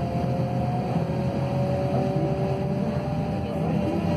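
Scania K280UB city bus heard from inside the cabin while driving: its Scania DC09 diesel and ZF Ecolife automatic drivetrain give a steady low rumble with a whine on top that rises slightly in pitch as the bus picks up speed.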